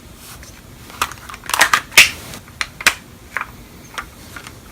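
Umarex Walther P99 spring airsoft pistol being handled and its slide worked. A cluster of sharp clicks and a short scraping rasp come about two seconds in, followed by a few lighter clicks.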